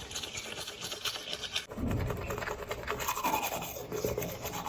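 Toothbrush scrubbing teeth: a fast, steady back-and-forth rasp, whose sound changes abruptly less than two seconds in.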